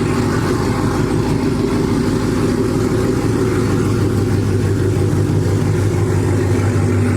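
Chevrolet Camaro ZL1's supercharged 6.2-litre V8 idling steadily, with a deep, even exhaust note.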